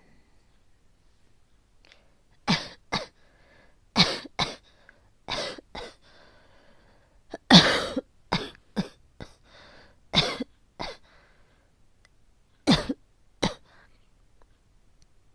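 A woman coughing over and over in short coughs that come in clusters of two or three with pauses between, about fifteen in all; the hardest cough comes about halfway through. This is an asthmatic coughing fit that won't stop.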